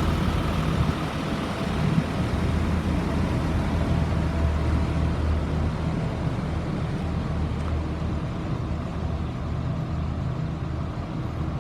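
2004 Blue Bird All American school bus's diesel engine idling steadily.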